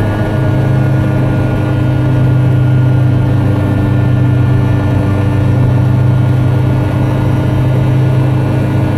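Car engine and tyre noise heard from inside the cabin while cruising at a steady speed: an even low drone that swells slightly about two seconds in.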